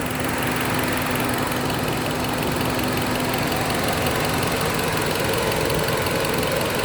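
Petrol car engine idling under air-conditioner load and misfiring heavily. The misfire comes from extra air leaking into the intake, which the mechanic later traced to a burst canister rather than the injectors or coils. A faint steady hum under the engine noise stops about two-thirds of the way in.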